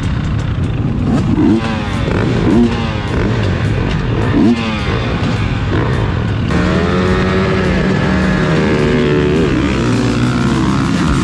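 Motocross bike engines revving in short blips on the starting line, then about six and a half seconds in the whole field goes to full throttle together, the engine notes climbing as the pack pulls away from the gate.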